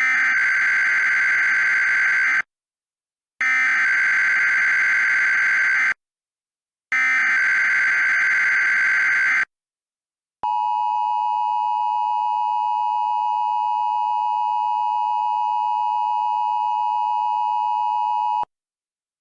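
Emergency Alert System tones: three bursts of SAME header data, each about two and a half seconds long with a second of silence between, then the steady eight-second two-tone attention signal (853 and 960 Hz) that announces a warning.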